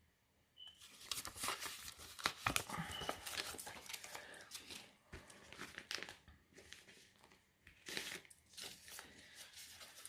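Paper and crinkly packaging rustling and crackling in the hands as small craft pieces are unwrapped and sorted, a run of short crackles with a couple of brief lulls.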